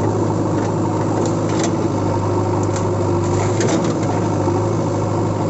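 Steady engine idling sound, unbroken and even, with a few faint light clicks over it.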